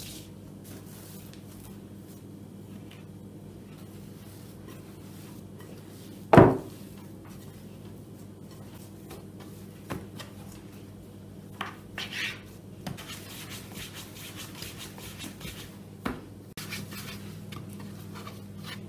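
Hands kneading and dividing yeast dough on a floured wooden board: soft rubbing and scraping, with one sharp knock about six seconds in. A steady low hum runs underneath.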